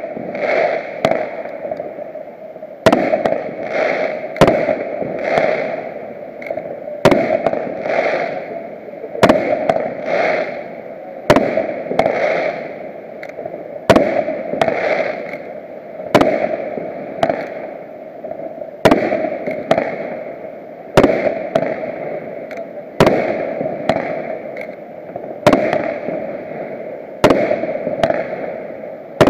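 Fireworks display: aerial shells going off in sharp bangs, mostly in pairs less than a second apart, repeating about every two seconds over a continuous hiss.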